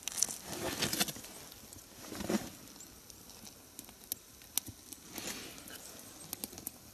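Small split logs being laid against a young campfire, with wood knocking and rustling in the first couple of seconds, then scattered small crackles and pops from the burning pine fatwood.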